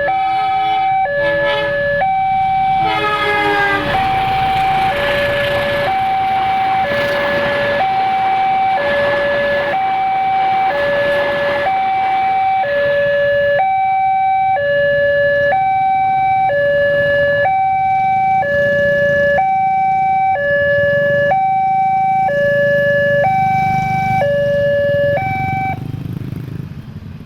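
Railway level crossing warning siren sounding a two-tone hi-lo alarm, switching between a higher and a lower tone about once a second while the crossing is closed for a train. It cuts off near the end.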